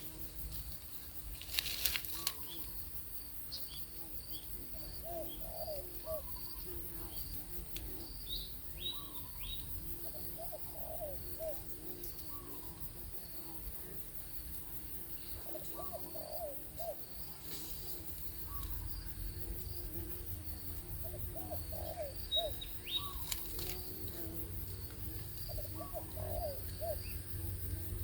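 Birds calling: a low phrase of several quick notes repeats about every five to six seconds, with thin high chirps in between, over a faint steady hum.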